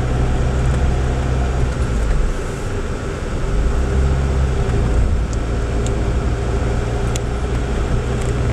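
Car cabin noise while driving: a steady low engine and road drone that eases briefly about two seconds in, then returns.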